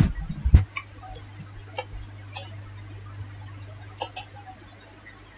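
Computer mouse clicking: a handful of single, sharp clicks spaced irregularly, a close pair of them about four seconds in, over a steady low hum. A brief low thump and rustle sounds in the first half second.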